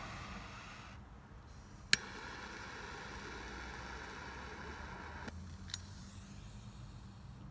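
Quiet car-cabin background with a low steady hum, broken by one sharp click about two seconds in and a fainter click near the end.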